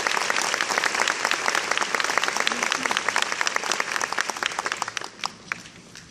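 Audience applauding: dense clapping that thins out and dies away about five seconds in, ending with a few scattered last claps.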